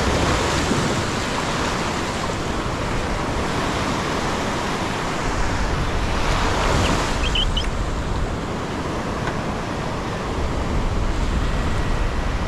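Gulf surf washing up a sandy beach: small waves breaking and running up the sand in a steady wash that swells louder twice, about a second in and again around six seconds in.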